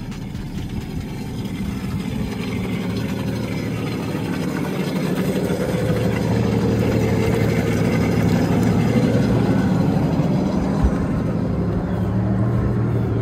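Yamaha jet boat engine idling steadily on its trailer with the flush hose just shut off, running on to blow the remaining water out of the water box before shutdown. It grows louder over the first several seconds.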